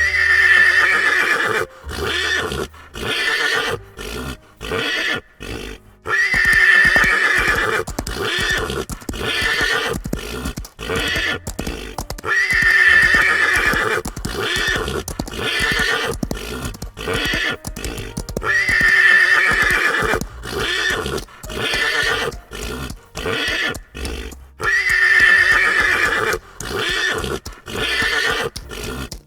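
A horse whinnying, the same loud call coming back about every six seconds, with shorter broken sounds in between.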